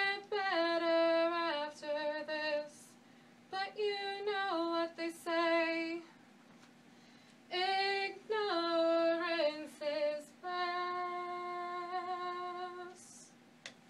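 A clean, melodic solo vocal sung in three phrases that step between sustained notes, the last ending on a long held note. A faint steady hum runs underneath.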